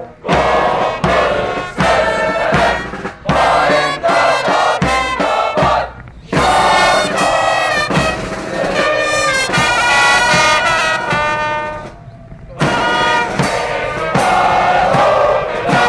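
A brass band plays with trumpets over a steady drumbeat, in sections broken by two brief breaks, about six and twelve seconds in.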